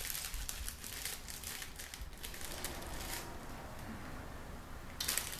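Plastic snack-bag wrapper crinkling as it is handled and opened, stopping about three seconds in and picking up again briefly near the end.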